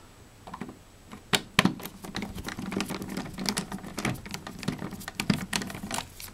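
Irregular clicks and taps of plastic from an old Honeywell thermostat being handled as it comes off the wall, the sharpest pair about one and a half seconds in.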